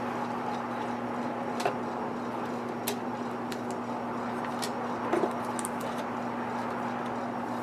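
A steady low hum with a few short, sharp clicks and taps scattered through it, like small hand-handling noises.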